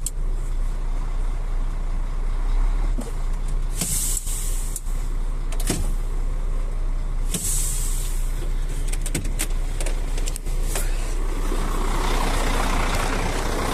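Semi-truck tractor idling steadily, with two short hisses of compressed air about four and seven and a half seconds in and a few sharp clicks. Near the end a broader rushing noise builds up.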